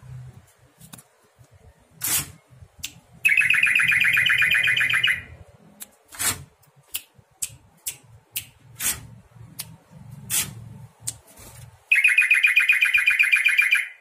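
Caged trucukan (yellow-vented bulbul) singing: two long, fast-pulsed buzzing trills of about two seconds each, one a few seconds in and one near the end, with short sharp chirps between them. The long rapid trill is the 'ropel' that bird keepers prize.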